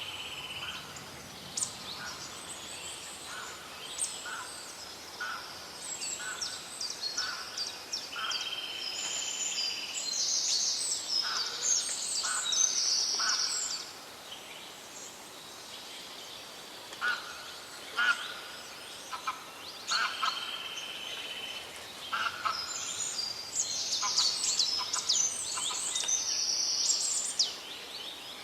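A chorus of several songbirds singing and calling in a forest: many quick chirps and high trills overlapping, with a buzzy held note of about a second recurring every ten seconds or so.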